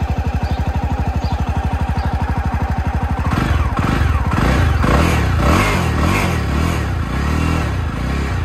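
Motorcycle engine running at idle with an even, rapid pulse, freshly started; from about three seconds in the throttle is blipped again and again, the pitch rising and falling with each rev.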